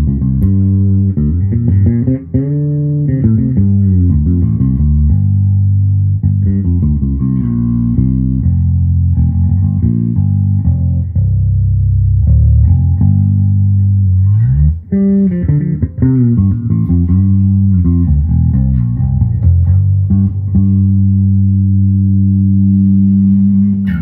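Dingwall Z1 five-string fretless electric bass with FD3 pickups being played, with gliding slides between notes and long sustained tones. The tone is set with the treble dialed back and the bass and mids boosted.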